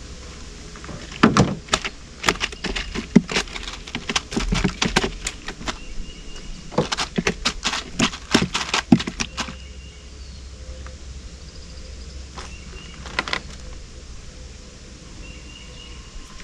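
Irregular run of sharp clicks and knocks on a small fishing boat for about eight seconds, then a couple more a few seconds later: handling noise as a just-caught bream is dealt with.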